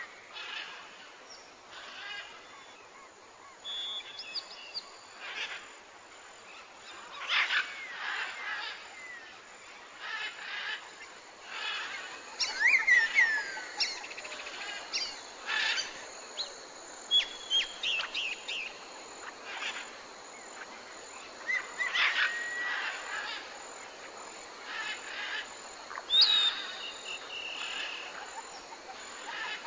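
Wild songbirds calling and singing: a scattered string of short chirps, whistles and down-slurred notes from several birds, over a faint steady outdoor hiss.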